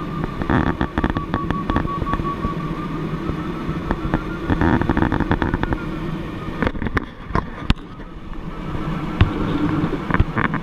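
Airflow noise and rattling crackles in a glider cockpit in flight, with a faint steady high tone that wavers slightly in pitch.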